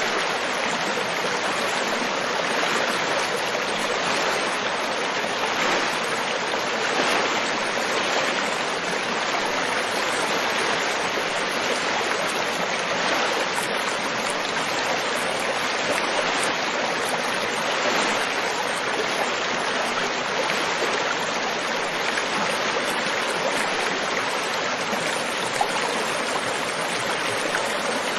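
River water flowing over rocks, a steady rushing babble with small swells.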